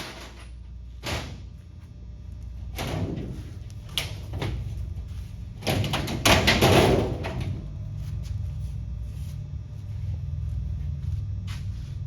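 A series of sharp knocks and clunks, with a louder, longer rattling, scraping stretch about six seconds in, over a steady low hum.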